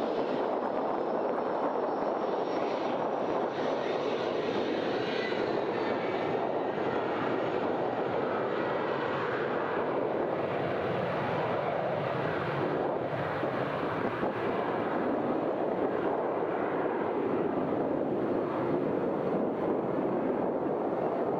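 Boeing 787's Rolls-Royce Trent 1000 turbofan running steadily during the aircraft's initial engine run, an even jet rush with a faint high whine that drifts slightly lower in the first few seconds.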